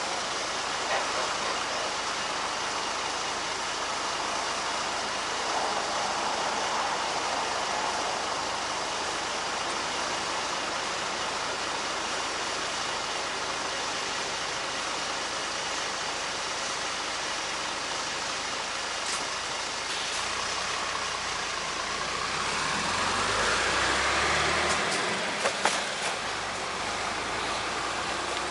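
Steady traffic and riding noise from a bicycle moving along a city street. A motor vehicle swells up and passes about three-quarters of the way through, followed by a few sharp clicks.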